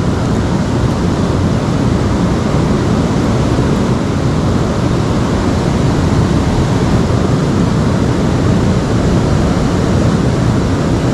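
Steady, even rush of fast-flowing river water, heaviest in the low end, with no breaks or single events.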